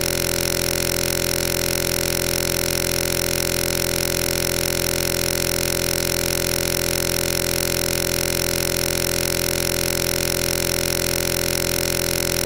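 A steady, unchanging buzzing drone made of many fixed tones, holding one level throughout with no breaks or changes.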